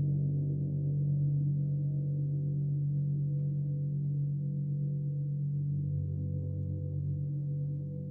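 A gong sounding in a sustained low wash of overlapping tones, with no distinct strikes, slowly fading toward the end.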